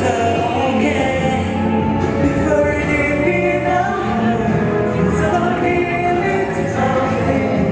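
Pop song with singing over a steady beat, performed live.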